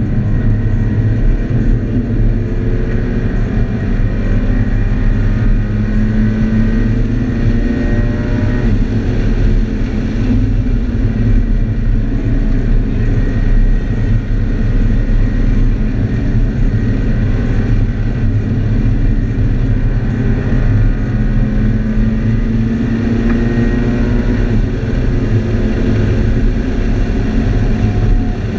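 Scion FR-S's 2.0-litre flat-four engine heard from inside the cabin under hard track driving, its pitch climbing and falling with the revs over a heavy low road rumble.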